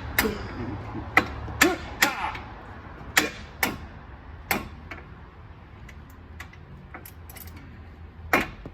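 Hand tools working on a car's brakes: irregular sharp metallic clicks and taps, a run of loud ones in the first five seconds, fainter ticks after, and one more loud knock near the end.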